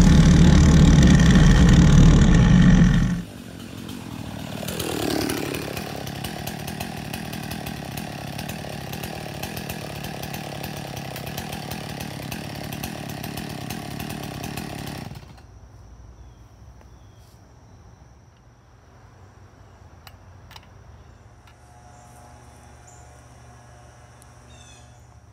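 Husqvarna 51 two-stroke chainsaw engine driving a bicycle, running loud and close for about three seconds, then heard more quietly and steadily, its pitch dipping and rising once about five seconds in. It cuts off about fifteen seconds in, leaving quiet woodland with a few clicks and faint chirps.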